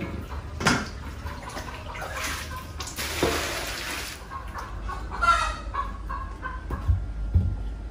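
Chickens clucking, with water splashed from a plastic dipper into a metal basin about three seconds in and a few knocks.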